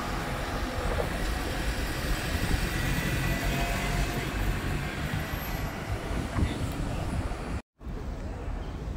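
City street ambience: a steady rumble of traffic with general urban noise. The sound drops out for a split second near the end, where the footage cuts.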